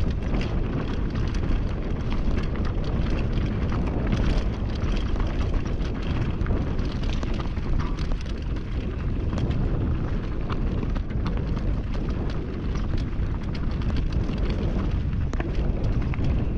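Wind buffeting the microphone of a mountain bike on a fast downhill run, a loud steady rumble. Many short clicks and rattles from the bike and its tyres over rough trail run through it.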